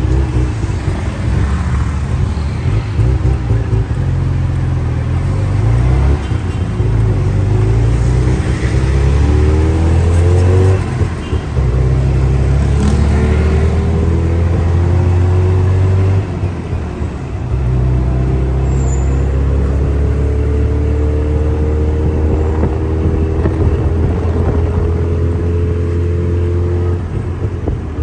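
Tuk tuk's small engine running under way, heard from the open passenger seat. Its pitch climbs as it speeds up and drops back twice, about a third and just over halfway through.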